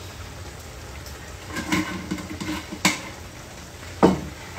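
Pots and cooking utensils clattering during cooking, with a sharp knock about three seconds in and a louder knock near the end.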